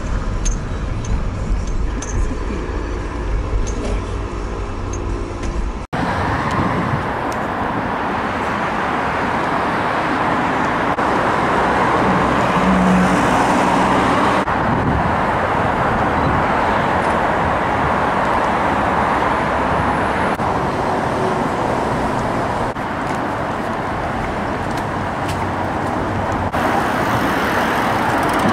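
Road noise heard from inside a moving car for about six seconds, then a sudden cut to steady outdoor road traffic noise.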